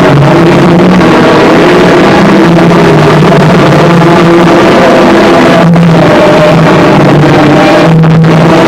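Harsh noise music: a dense, heavily distorted wall of noise at full loudness with wavering low droning tones, cut by two brief dropouts in the second half.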